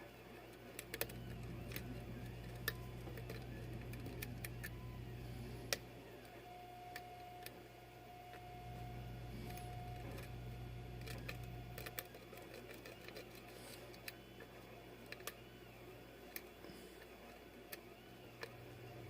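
Scattered small metallic clicks and ticks of a lock pick and tension wrench working the pins of a custom pin-tumbler challenge lock. A low steady hum comes and goes behind them.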